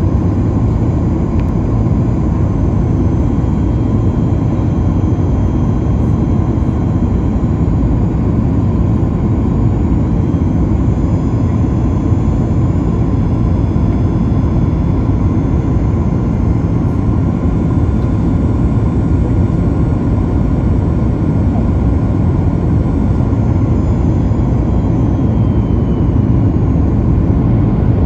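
Steady cabin noise inside a Boeing 737 MAX 9 on approach: the rush of airflow and the hum of its CFM LEAP-1B turbofan engines, with faint high whine tones above. It grows slightly louder near the end.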